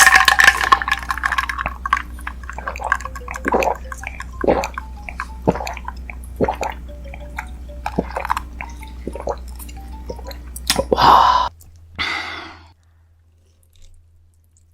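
Close-miked wet chewing and mouth smacks of someone eating ramen noodles, many small irregular clicks and squishes. Two short noisy slurps come near the end, then the sounds stop.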